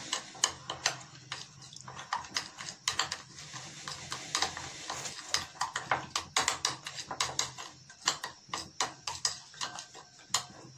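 Ketchup and dry spices being stirred together in a small glass bowl, with irregular light clicks and taps against the glass, a few a second.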